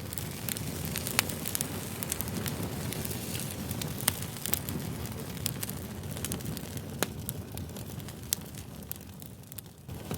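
Wood campfire burning, with a steady low rush of flames and frequent irregular crackles and sharp pops from the burning wood. The loudest pops come about a second in and about four seconds in.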